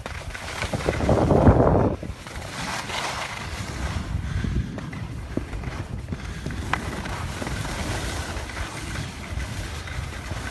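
Wind buffeting the microphone with a low, steady rumble, and a louder rush about a second in.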